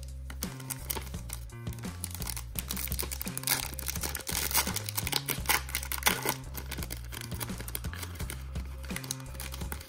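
Foil trading-card pack being torn open and crinkled by hand, the crinkling loudest from about two and a half to seven seconds in. Background music with a steady bass line plays throughout.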